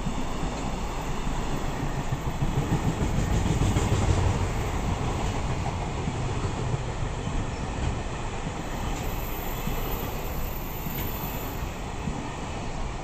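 Container freight train passing close at speed: a steady noise of its wagons' wheels running over the rails. A thin high whine is heard for a few seconds past the middle.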